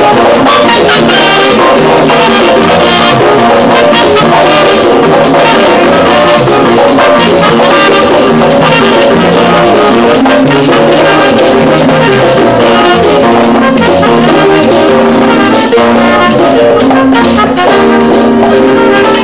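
Live Latin dance band playing loudly, with a brass section of trumpets carrying the melody over hand drums and a running bass line.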